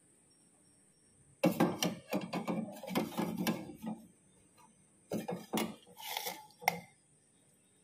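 Metal ladle knocking and scraping against the inside of a small metal pot of water as it moves the eggs about. It comes in two spells of clatter, the second shorter.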